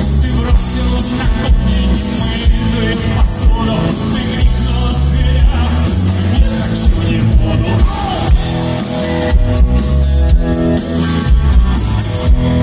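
Live rock band playing through a stage PA: electric guitars, bass guitar and drum kit, with a lead vocal singing over them.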